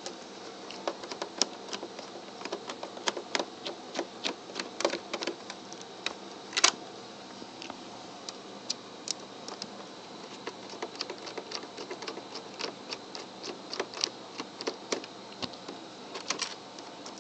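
Irregular small metal clicks and taps of a mini screwdriver undoing the screws on top of an opened PS3, with one louder knock about seven seconds in.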